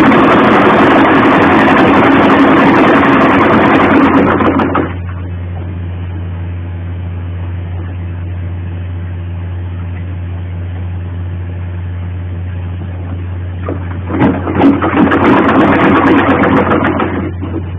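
Sewing machine stitching for about five seconds, stopping, then running again for about three seconds near the end. A steady low hum runs underneath throughout.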